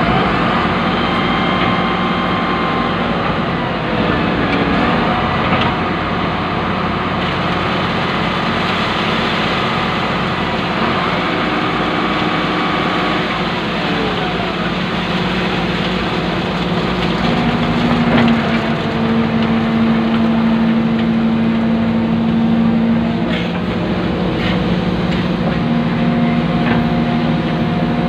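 Excavator's diesel engine running steadily, heard from inside the operator's cab, as a loud continuous hum whose pitch pattern shifts about two-thirds of the way through.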